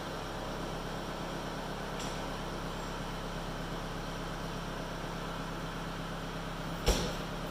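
New Holland skid steer's diesel engine idling steadily after a cold start, warming up. A single sharp knock near the end stands out over the idle.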